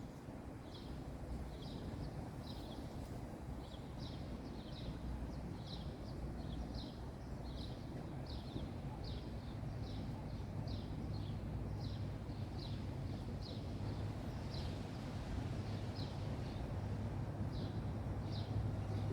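A bird calling over and over: short, high notes that slide downward, about two a second, over a steady low rumble.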